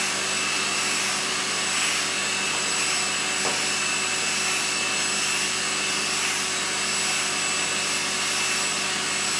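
Ultenic P30 Combo pet-grooming vacuum running steadily: a constant motor rush with a thin high whine over it.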